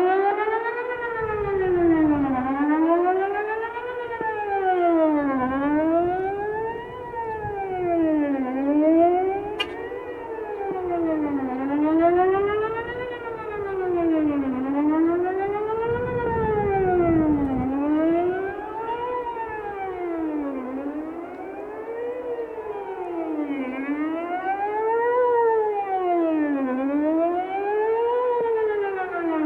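Whelen 4008 electronic outdoor warning siren sounding during a tornado-siren test, its tone sweeping up and down about every two seconds.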